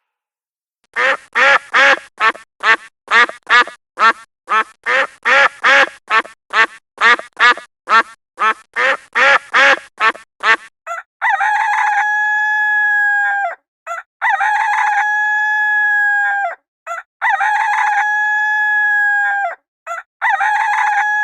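A rapid run of about two dozen short farm-fowl calls, then a rooster crowing four times, each crow a long, level call.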